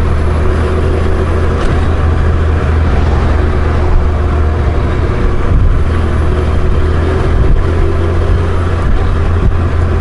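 Honda Gold Wing motorcycle's flat-six engine running steadily under way, a constant low hum mixed with wind and road noise.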